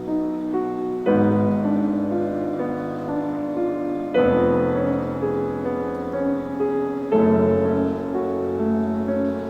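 Background piano music, a new chord struck about every three seconds.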